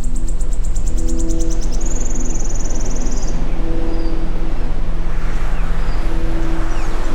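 Layered sound-therapy mix: a steady low engine-like rumble under soft sustained musical tones, with a high rapid chirring, about ten pulses a second, for the first two seconds, then a high steady whistle for about a second and a half, and faint scattered chirps.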